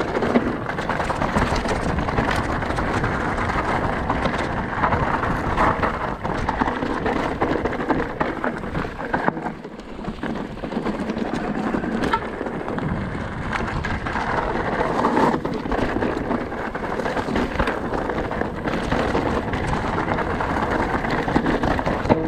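Mountain bike rolling down a rocky dirt trail, heard from a camera mounted on the rider: a steady rough rumble of tyres over stones and the bike rattling, with frequent small knocks and a brief let-up about ten seconds in.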